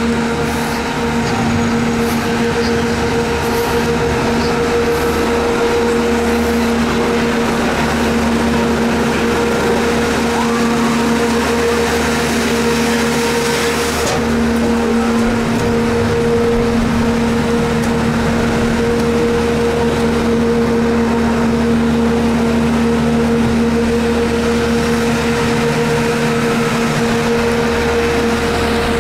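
Gondola lift running: a steady mechanical hum carrying a constant low whine, with a high hiss that cuts off sharply about halfway through.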